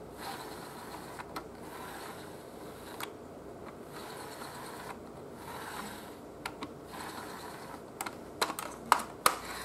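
Plastic gears and tray rails of an NEC CD-3010A CD-ROM drive whirring and rattling softly as the disc tray is slid in and out by hand, in several strokes, with a few sharp clicks near the end.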